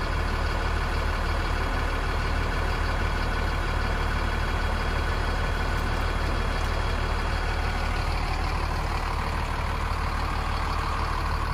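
Diesel running from a pump nozzle into a truck's fuel tank: a steady rush of fuel over a constant low hum.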